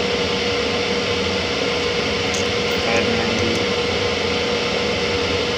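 Steady machine hum with one constant mid-pitched tone running through it, and a few light clicks partway through.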